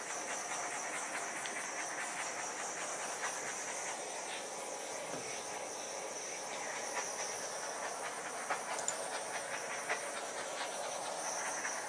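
Handheld butane torch flame hissing steadily as it is passed over wet acrylic paint to pop the air bubbles.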